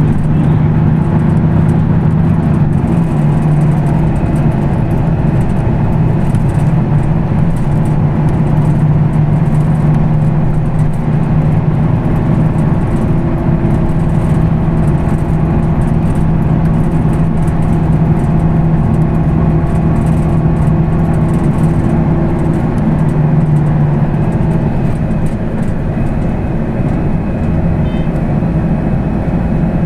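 Weichai WP6NG210E50 natural-gas engine of a Higer KLQ6935GC5 city bus running as the bus drives, a steady engine hum; about 24 seconds in the engine note changes and drops slightly in level.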